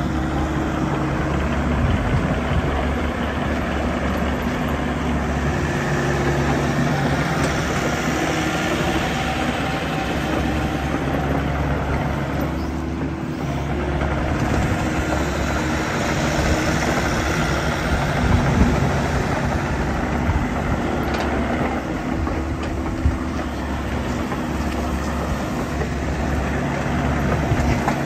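Volvo ECR88D compact crawler excavator's diesel engine running steadily as the machine travels and turns on its tracks, with clattering from the running gear and a few sharp clicks.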